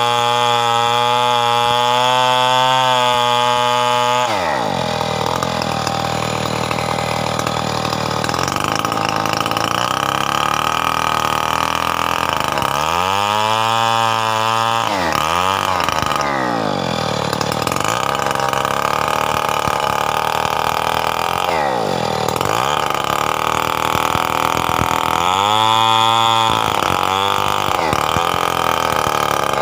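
Stihl 070 two-stroke chainsaw running at high revs while cutting coconut wood into beams. The engine pitch drops about four seconds in, then dips and climbs again several times as the saw loads and unloads in the cut.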